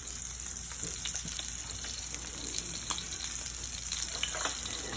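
Wagyu rib-eye steak sizzling in hot vegetable oil in a pan: a steady frying hiss with scattered small pops and crackles.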